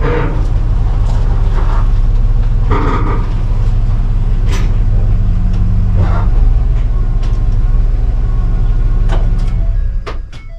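A heavy engine runs steadily with a low rumble, with several sharp metallic clanks and knocks from the machinery it drives. The rumble drops away about ten seconds in.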